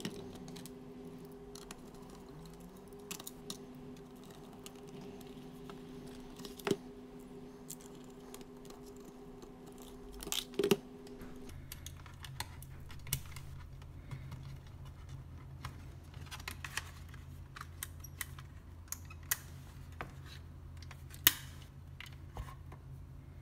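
Scattered clicks and light taps of the round LED ceiling spotlight's plastic parts being handled and fitted back together, the sharpest snap about 21 seconds in. A steady low hum runs underneath and shifts to a lower pitch about halfway through.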